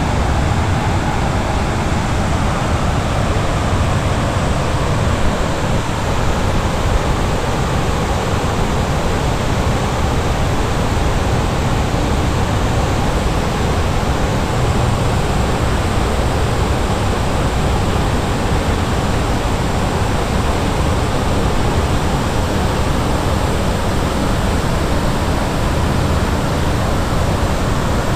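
Water of the 9/11 Memorial reflecting pool falling down the pool's walls in a continuous cascade: a steady, even rush of falling water.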